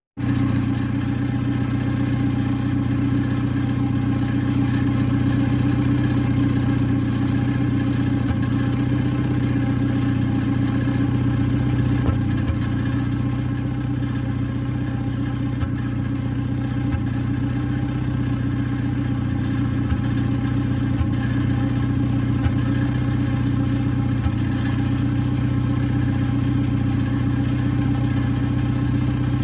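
Older car's engine idling steadily at an even, low pitch, with a light irregular tick now and then.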